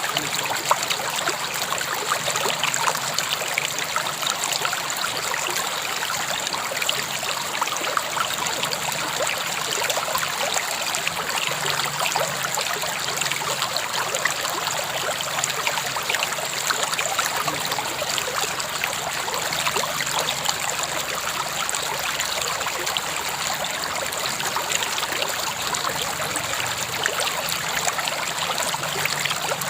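River water flowing and trickling over rocks, a steady rushing babble with many small splashes.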